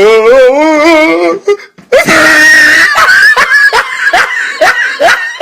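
Voices from meme sound-effect clips: a wavering, warbling wail, a short break, then a loud scream about two seconds in, followed by short rapid vocal bursts.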